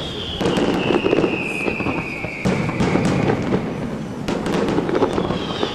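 Fireworks display: shells bursting with sharp bangs a second or two apart, and a long whistle that falls slowly in pitch over about three seconds, with another whistle starting near the end.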